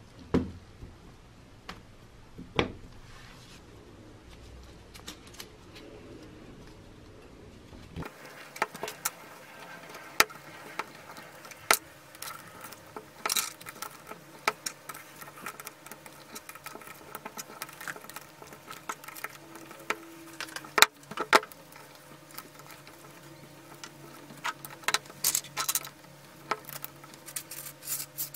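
Small metal drill parts clicking and clinking as they are handled and fitted together, with irregular sharp taps and a few louder knocks.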